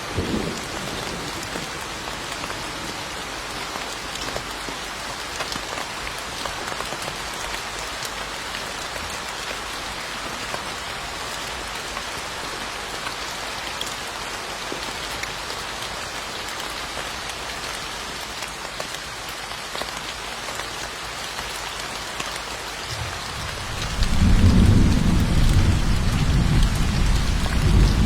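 Steady rain falling, an even hiss. Near the end a loud, low roll of thunder comes in and rumbles on, and a short tail of earlier thunder fades out at the very start.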